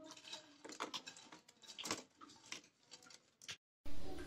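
Wooden spatula tapping and scraping in a pan as deep-fried cauliflower florets are stirred into thick Manchurian sauce, giving irregular soft clicks and taps. Near the end this stops and gives way to a louder, steady low hum.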